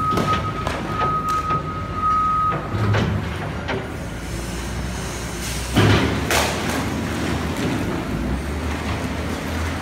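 Caterpillar wheel loader with a grapple-rake bucket: its diesel engine runs steadily while the reversing alarm beeps until about two and a half seconds in. A loud clatter comes about six seconds in as the bucket works into the trash pile, and the engine rises toward the end.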